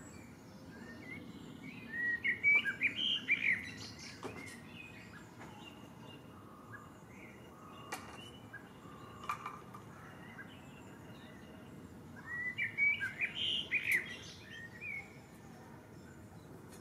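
A songbird singing two short phrases, each a quick run of notes, about ten seconds apart, over a steady low outdoor background hiss.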